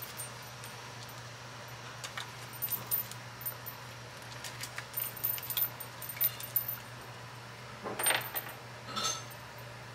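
Paper craft cutouts being handled and sorted on a table: scattered light rustles and small clicks, with two louder rustles about eight and nine seconds in, over a steady low hum.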